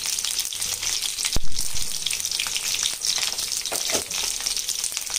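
Chopped onions sizzling steadily in hot refined oil in a pan. A sharp knock about a second and a half in, and a few weaker strokes near four seconds.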